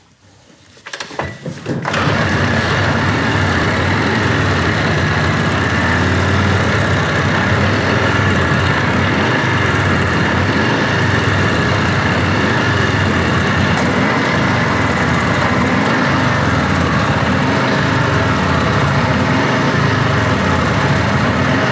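1947 Harley-Davidson motorcycle engine being started: a few faint knocks, then it catches about two seconds in and runs steadily through its newly fitted muffler, which sounds way better.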